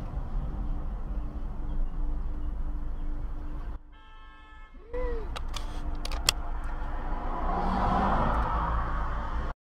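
Road and engine rumble from a moving car heard through a dash camera. About four seconds in it drops to a quieter stretch with a steady tone, then a few sharp clicks and knocks, before the sound cuts off abruptly near the end.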